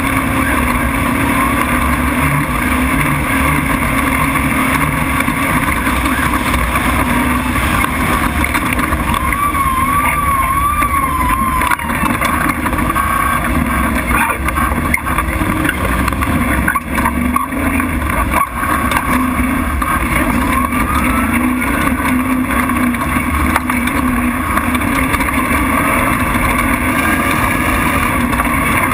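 Off-road race truck engine running hard at speed with steady road and wind noise, and a few sharp knocks midway.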